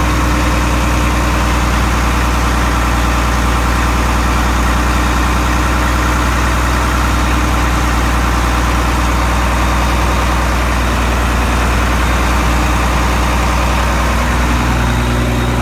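Engine of a Global 2100TE deicing truck idling steadily, a constant low hum with no change in speed.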